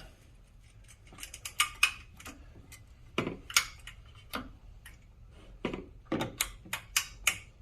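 Irregular clicks and light metallic clinks of a tension wire, its spring and small metal parts being handled and fitted into a slot by hand.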